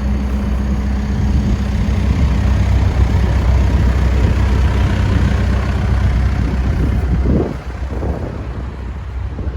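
Case 580 Super N backhoe loader's diesel engine idling with a steady low rumble. The rumble becomes much quieter about seven and a half seconds in.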